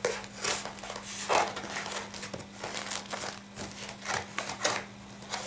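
Scissors cutting into a stiff cardboard shipping box: a run of irregular crunching snips and scrapes, roughly two a second.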